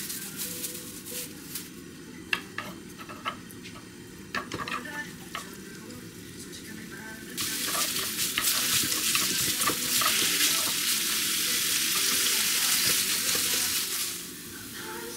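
Food frying in a pan with clicks of stirring. The sizzle turns suddenly louder about seven seconds in and eases near the end.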